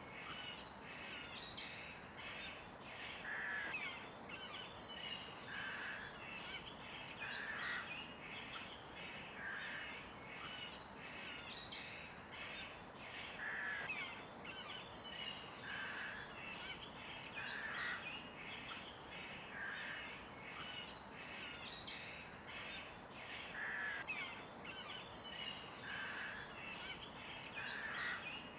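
Several birds chirping and singing together in quick, overlapping calls, with one lower call repeating about every two seconds over a faint steady hiss.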